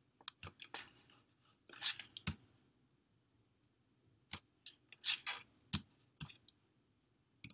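Computer mouse clicks: about ten sharp, scattered, fairly faint clicks, with a couple of short soft hissing sounds between them.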